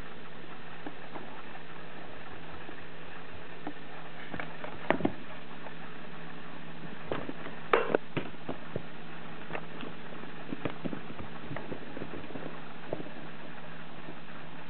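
Scattered light taps, scuffles and knocks of kittens playing and moving about on a carpeted floor inside a wire playpen, over a steady low hum. The loudest knocks come about five and eight seconds in.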